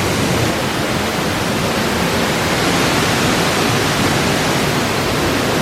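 Waterfall pouring close to the microphone: a loud, steady rush of water.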